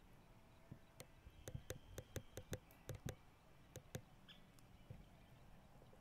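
Quiet outdoor evening background broken by a run of about a dozen sharp, irregular clicks between about one and four seconds in, with a faint high steady tone and one short high chirp.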